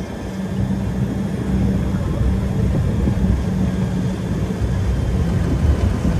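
Safari tram running steadily, heard from on board: a continuous low engine drone with a steady hum.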